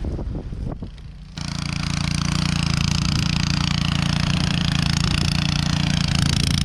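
An engine starts up suddenly about a second and a half in and then runs steadily and loudly. Before that there are a few short knocks over wind noise.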